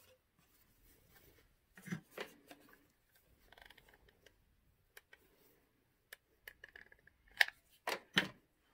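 Crafting handling noises at a wooden tabletop: soft rustling of fabric being pressed over a foam mattress block, with scattered light clicks and taps as a hot glue gun is handled and set down. The sharpest clicks come near the end.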